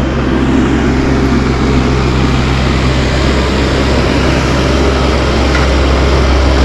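Mini excavator's diesel engine running steadily under work.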